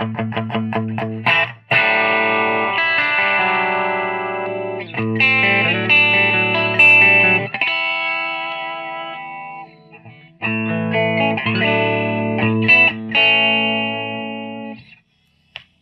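Electric guitar played through a Scholz Research & Design Rockman Compressor Module into a Bogner XTC tube amp and a 1x12 cabinet. It opens with fast, even picked notes, then moves to long compressed chords that ring out, with a few short breaks, and stops near the end.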